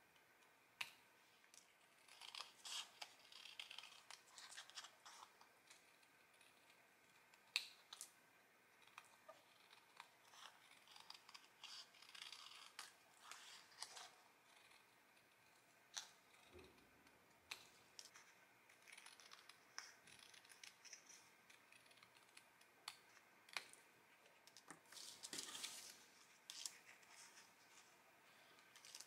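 Small scissors snipping through painted paper while cutting out circles: a series of quiet, separate snips, with light rustling of the paper being turned in the hand.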